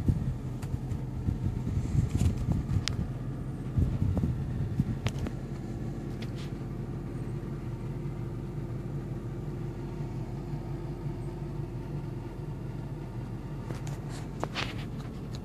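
2009 Jaguar XF's engine idling steadily, heard inside the cabin as a low hum, with a few light clicks near the start and again near the end.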